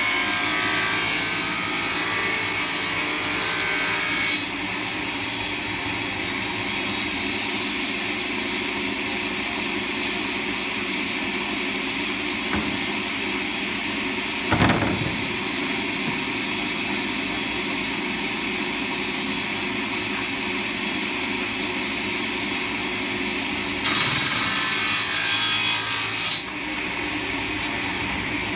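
Table saw's circular blade ripping a long, wide wooden board, a steady cutting noise over the motor's hum that grows louder and brighter in the first few seconds and again near the end, with one sharp knock about halfway through.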